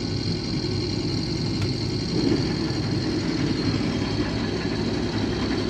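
Case IH 2188 combine's diesel engine and machinery running steadily, with a faint high steady whine above the drone. It sounds healthy, with no rattling, which the buyer judges as all running good.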